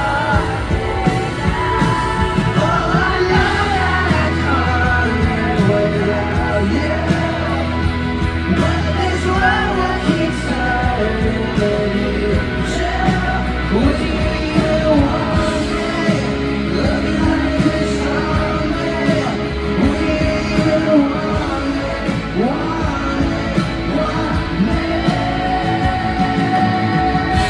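Live rock band playing loudly, with singing over guitars, bass and drums.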